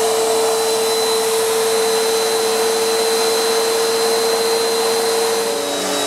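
Bissell PowerForce Helix upright vacuum cleaner running steadily with a high whine, just switched on for a test run after reassembly. Its tone shifts slightly near the end.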